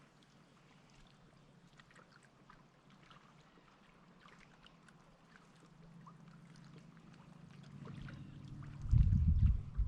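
Faint water lapping and trickling, with scattered small drips and ticks. From about nine seconds in, a loud, uneven low rumbling and thumping takes over.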